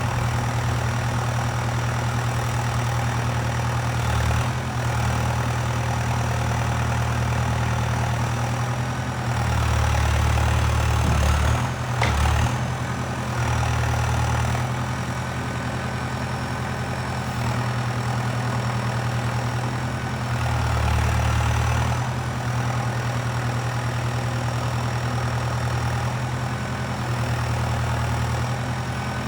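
Valtra 815 backhoe loader's diesel engine running steadily, its low note swelling louder for a few seconds several times as it works. A thin high whine sits over it, and there is a brief knock near the middle.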